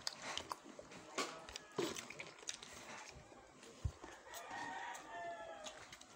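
A rooster crows once, one drawn-out call about four seconds in, over close-up chewing and lip-smacking clicks from someone eating fried chicken and rice by hand.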